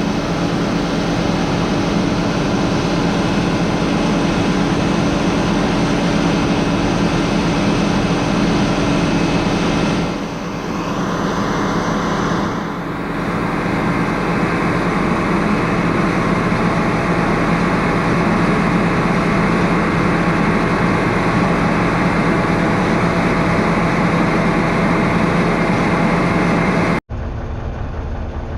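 Heavy vehicle engine running at a steady speed, dipping briefly twice in the middle. Near the end it cuts off suddenly and a quieter engine sound follows.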